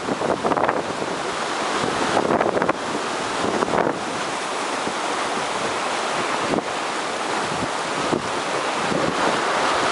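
Heavy typhoon swell breaking as a continuous wash of surf, with wind buffeting the microphone in short gusts during the first few seconds.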